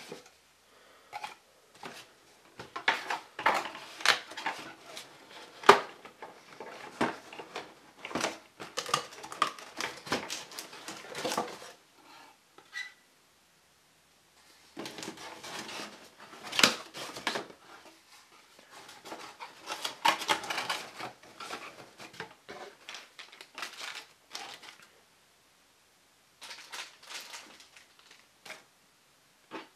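Cardboard packaging being handled: a cardboard insert pulled and shifted inside a cardboard box, with bouts of scraping, rubbing and tapping of cardboard. The handling stops briefly about twelve seconds in and again near the end.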